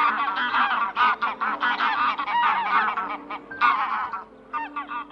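A flock of geese honking, many short calls overlapping one another, thinning out to a few scattered honks near the end.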